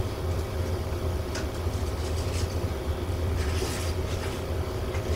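Steady low room hum, with a few short faint scratches of a marker writing on a whiteboard, the longest about three and a half seconds in.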